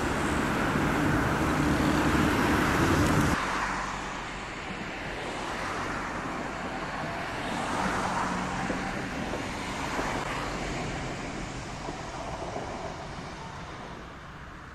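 Road traffic running past, loud with a deep rumble, cutting off suddenly a few seconds in. Then quieter street sound as a low-floor tram rolls by on its rails, swelling twice in the middle and fading toward the end.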